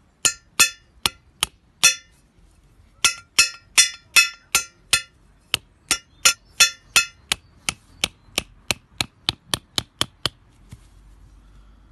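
Mallet blows driving a stainless-steel trampoline anchor peg into the ground, each strike ringing metallic. Five blows come first, then a pause of about a second, then a long steady run of about three blows a second that grow lighter toward the end.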